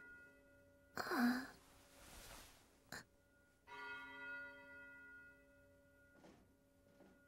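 A girl's shaky sigh with a falling pitch about a second in, then a single bell stroke a little before the middle that rings on and slowly fades.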